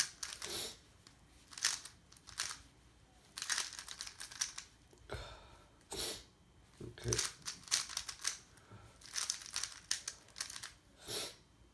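A plastic 3x3 puzzle cube being turned by hand while it is solved: irregular runs of quick clicking and clacking turns, with short pauses between the runs.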